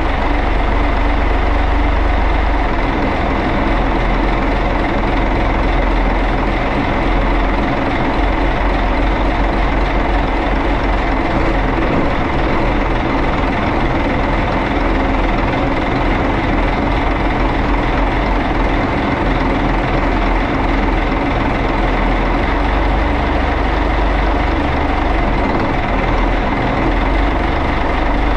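Yanmar 6CZ turbocharged six-cylinder marine diesel engine running steadily on a test run after servicing.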